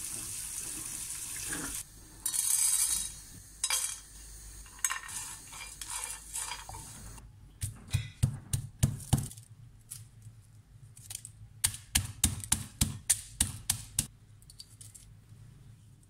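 Seasoning sauces being poured into a large enamel stockpot of broth: a hiss of pouring liquid in the first few seconds, then a run of sharp clinks and knocks from bottles and utensils against the pot.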